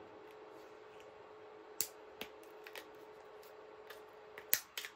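Flush cutters snipping 3D-printed plastic support struts off a printed part, giving scattered sharp clicks and snaps. The loudest two come close together near the end.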